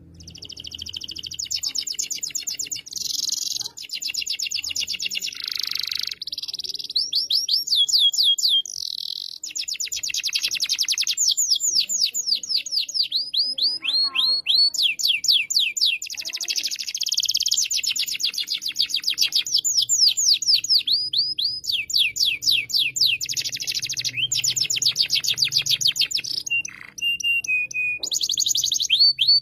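Domestic canary in full song: long runs of fast trills and rapidly repeated sweeping notes, phrase after phrase with only brief breaks, and a short held whistle near the end.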